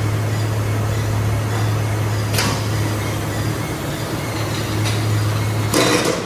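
Factory machinery running with a steady low hum, with two light clicks and a short, louder clatter near the end.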